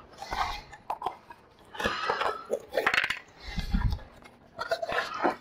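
Cardboard box being handled and opened: irregular scraping and rustling of cardboard with a few clicks, and a heavier bump about three and a half seconds in.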